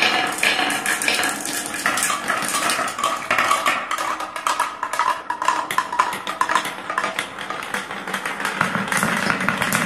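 Many glass marbles rolling down plastic and wooden marble-run tracks, clicking and clattering against each other and the track in a dense stream of small knocks.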